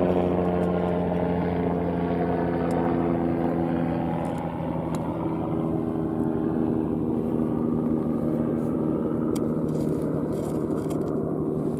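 A helicopter's engine and rotor running steadily close by, a constant mechanical drone made of several steady tones whose pitch shifts slightly about four seconds in.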